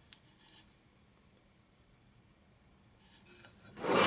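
Quiet shop room tone with a small click at the start, then near the end a loud scrape lasting about half a second as the aluminium Harley Evolution crankcase half is slid and turned on the steel workbench with a dial bore gauge seated in its bearing bore.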